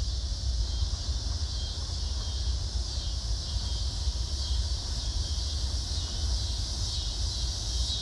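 Steady outdoor ambience: a continuous high-pitched insect chorus over wind rumbling on the microphone.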